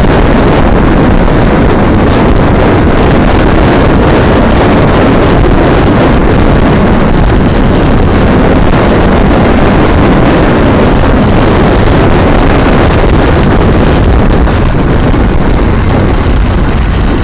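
Honda motorcycle riding along at town speed, heard from a camera mounted on the bike: heavy wind noise on the microphone over the steady running of the engine, easing slightly near the end.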